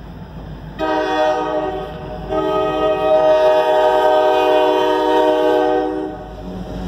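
Freight diesel locomotive's air horn sounding two blasts for the grade crossing, several notes at once: a short one about a second in, then a long one of nearly four seconds. After it stops, the locomotive's engine is heard running as it rolls past.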